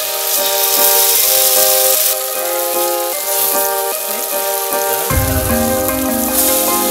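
Tofu slabs sizzling as they fry in oil in a pan, a steady hiss that is strongest in the first two seconds. Background music plays over it, and a bass line comes in about five seconds in.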